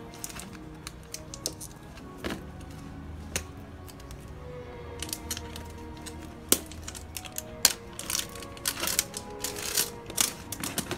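Plastic tamper seal on a protein-powder tub's screw lid crinkling and tearing as it is peeled off by hand: scattered sharp crackles that come thick and loud in the second half, over soft background music.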